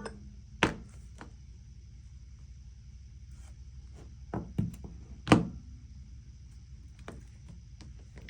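Scattered light knocks and taps, about seven, the loudest about five seconds in, over a low steady hum and a faint high electronic whine.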